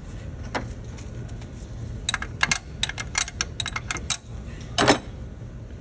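Metal clicks from a wrench working an injector fuel line fitting: a single click early, then a quick irregular run of clicks for about two seconds, then one louder clunk near the end.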